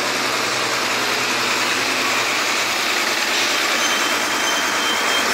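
An old truck's diesel engine running steadily at low speed, a loud continuous clatter and rumble.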